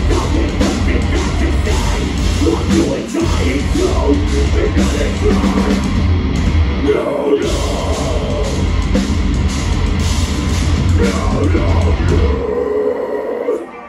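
Metalcore band playing live through a club PA: distorted guitars, bass and drums with vocals. The heavy low end cuts out briefly about three seconds in and again about seven seconds in, and for over a second near the end, before the band comes back in.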